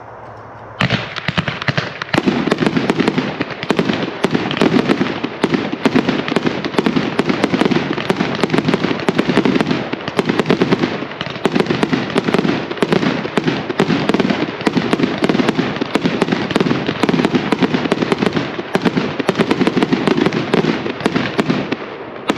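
Spirit of 76 49-shot consumer firework cake (gold tail to gold rain brocade with multicolor dahlia) firing, a rapid, unbroken series of launches and bursts starting about a second in.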